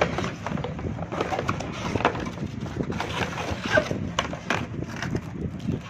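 Cardboard box and packaging being handled and unpacked: rustling and scraping with many small irregular clicks and taps.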